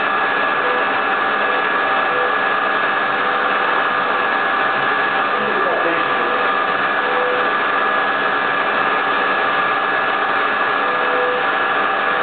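High-speed spindle of a small CNC milling machine running with a steady high whine over a hiss while its fine end mill cuts grooves into a clear sheet.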